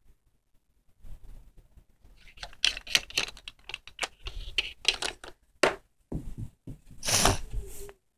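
Handling noise: irregular clicks, taps and scrapes of small plastic toy figures being moved about on a hard surface, with a louder rubbing noise near the end as the recording device is moved.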